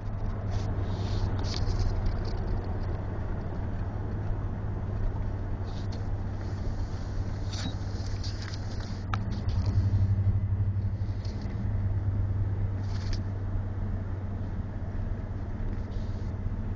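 Engine and tyre noise inside a moving vehicle's cab: a steady low hum over road rumble, louder for a moment about ten seconds in.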